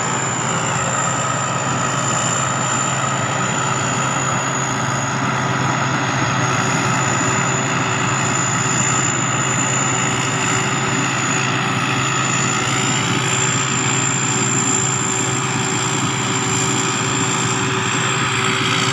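Sakphattana SS-300 combine harvester running steadily while harvesting rice, its turbocharged engine under load with a thin, steady high turbo whistle over the engine noise.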